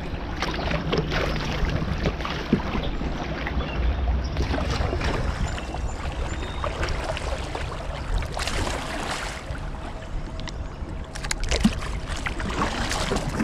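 River water splashing and lapping against a plastic kayak's hull as it moves with the current, with short irregular splashes and a few louder stretches. Wind rumbles on the bow-mounted microphone throughout.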